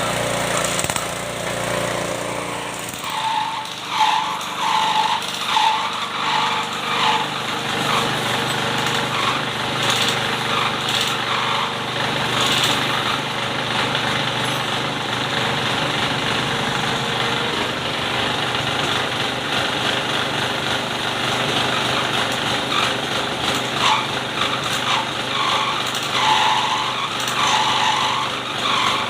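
A Honda GX160 single-cylinder four-stroke engine running steadily, driving a car and motorbike washer pump. A rhythmic pulsing, a bit faster than once a second, comes in and out, a few seconds in and again near the end.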